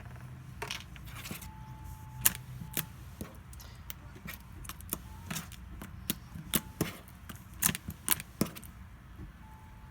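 Jiggly slime made from white glue being squished and worked by hand, giving irregular sharp clicks and small pops.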